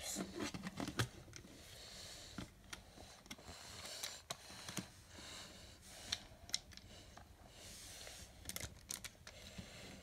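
LEGO bricks being handled and fitted together: scattered sharp plastic clicks, with soft scraping and rubbing of the bricks between them.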